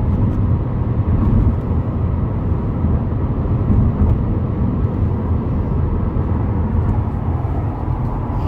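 Steady tyre road noise from Yokohama Advan tyres, heard inside the cabin of a 2018 Subaru WRX STI as a continuous low rumble. The driver puts the noise down to the tyres being hard.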